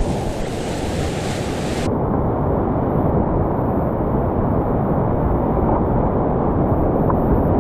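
Steady, loud rushing of river whitewater, with extra hiss in the first two seconds.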